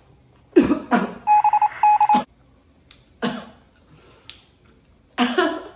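An electronic beeping sound effect: a quick run of rapid tone pulses, a short break, then a few more, between short vocal exclamations from a woman.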